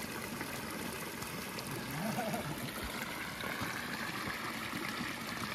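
Small hillside stream trickling over stones into a shallow pool: a steady, even rush of running water.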